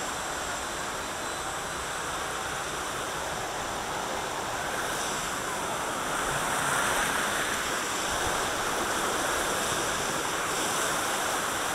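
Rushing, churning water of a river-rapids ride channel swirling around the raft, a steady rush that grows a little louder about halfway through.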